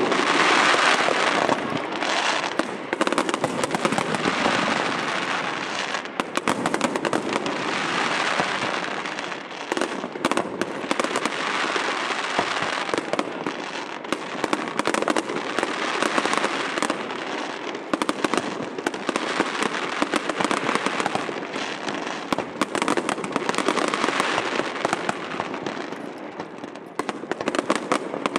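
Aerial fireworks shells bursting in quick succession: a steady barrage of overlapping bangs and crackles with no pause.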